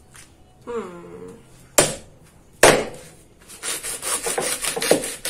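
Serrated knife sawing through the base of an ear of fresh corn against a wooden cutting board, to free the husks. Two sharp knocks come first, then a quick run of rasping sawing strokes near the end.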